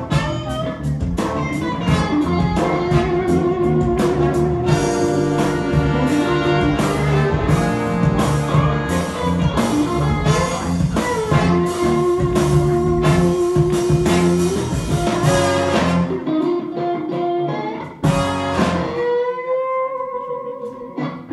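Live blues band playing with electric guitar, a horn section of saxophone, trombone and trumpet, keyboard, bass and drums. About three-quarters of the way through, the drums and bass drop out. After a short break, a single held note with a slight bend rings on and fades.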